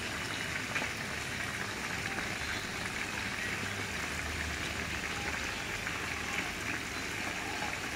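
Batter-coated squid pieces deep-frying in hot oil: a steady, even sizzle.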